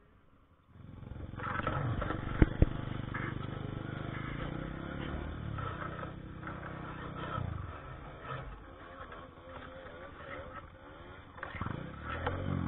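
Motorcycle engine coming in about a second in and revving up and down unevenly, with two sharp knocks close together about two and a half seconds in, the loudest sounds.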